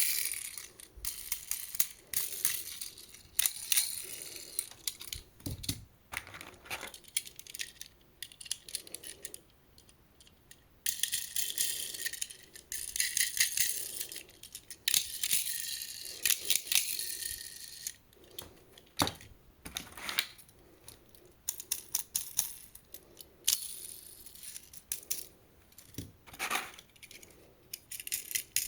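Small die-cast toy cars and plastic pieces clicking and clattering against each other, with stretches of a high, hissy scraping as they roll or slide along a plastic track.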